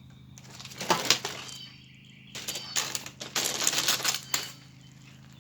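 Objects thrown at a plastic box fan, striking and rattling it in two bursts of clattering, about a second in and again for about two seconds in the middle.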